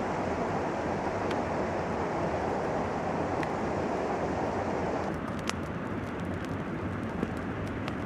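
Steady outdoor rushing noise, like wind on the microphone, that changes abruptly about five seconds in. A few sharp clicks follow.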